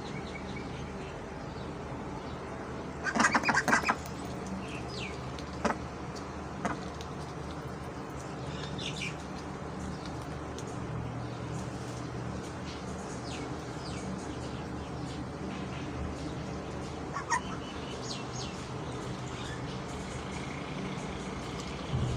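Ducks feeding on cabbage: a short loud burst of duck calls about three seconds in, then scattered sharp clicks and brief high calls over a steady low hum.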